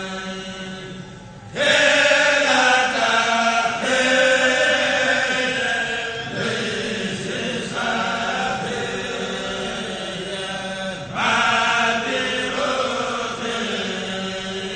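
A kourel, a group of Mouride men, chanting a khassida of sung religious verse into microphones in long held phrases. The voices come in loudly about a second and a half in, then come in again strongly near the end.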